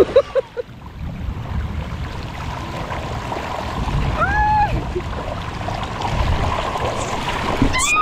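Water rushing and a rider sliding down a water slide, heard close from a camera worn by the rider, growing louder as she picks up speed. A short high yelp comes about four seconds in and another just at the end.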